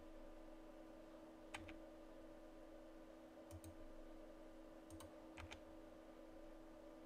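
Near silence over a steady low hum, broken by a few faint clicks of a computer mouse and keys: single clicks about a second and a half in and again at five seconds, and quick pairs of clicks around three and a half and five and a half seconds.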